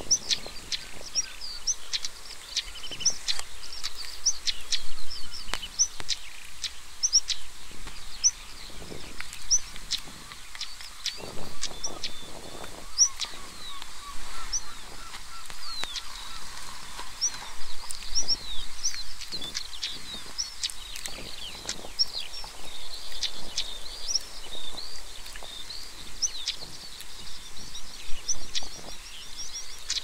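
Birdsong from small songbirds: a dense, continuous run of short, high chirps and quick whistled notes.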